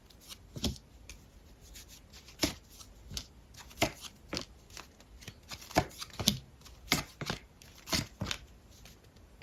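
A deck of tarot cards being handled: about a dozen short, sharp taps and flicks of cards at irregular intervals.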